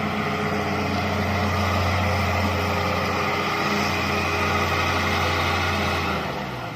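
Diesel engine of a John Deere 160 excavator running steadily at working revs. The drone drops off fairly suddenly about six seconds in.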